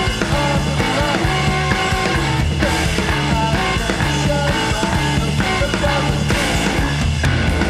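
Noise pop song from a studio album: a loud, dense rock band mix with a steady, repeating beat.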